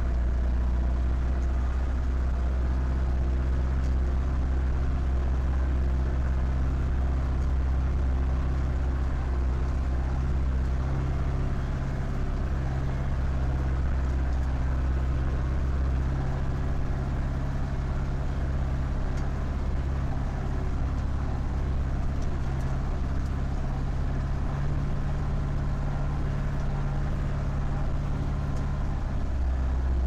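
Zetor 7011 tractor's four-cylinder diesel engine running steadily while driving slowly, heard from inside the cab. Its low note shifts slightly about twelve seconds in and again near the end.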